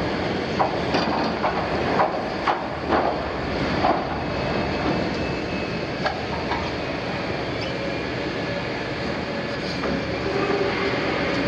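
Liebherr 974 demolition excavator's diesel engine running under load while its jaw attachment tears and crumples the steel sheet of an oil tank wall. There is a quick run of loud metal clangs and bangs in the first four seconds and two more around six seconds, then a steadier grinding and scraping of metal with a faint thin screech.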